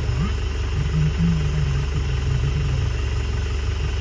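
A vehicle engine idling steadily with a low drone.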